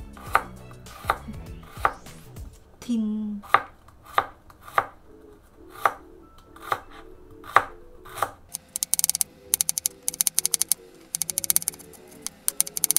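Chef's knife slicing shallots thinly on a wooden cutting board: single knocks of the blade on the board every half second or so, then, about eight and a half seconds in, a fast run of quick, even cuts.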